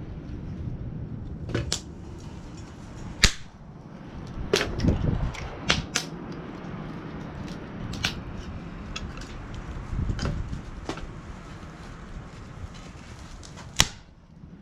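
Stainless steel fire-pit parts being handled and fitted together: about ten sharp metal clacks and knocks at irregular times, with a low rustle of handling between them.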